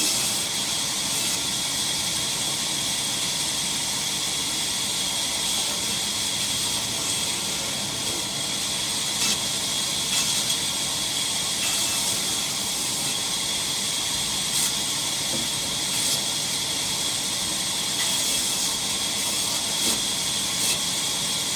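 Sawmill saw running through raw timber: a steady, high-pitched hiss and whine that holds level, with a few faint ticks.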